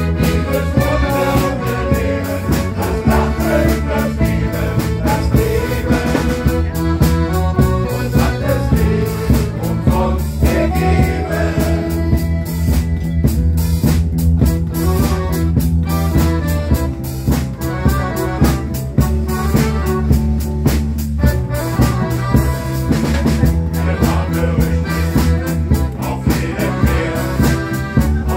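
Live band of accordions, electric bass, guitar and drum kit playing an upbeat song to a steady drum beat, with a men's choir singing along.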